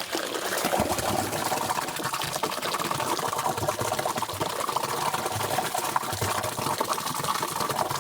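Runny concrete mix being churned by a motor-driven mixer: a steady mechanical whirr with wet sloshing.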